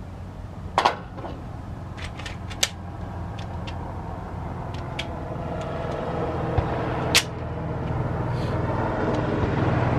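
Steady low engine hum, slowly growing louder, with a few sharp clicks and knocks over it.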